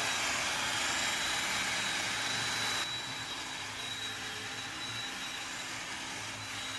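Cordless drill spinning a wire wheel brush against a wheel hub, scrubbing rust off the rotor mating surface with a steady, hissing whir. It gets a little quieter about three seconds in.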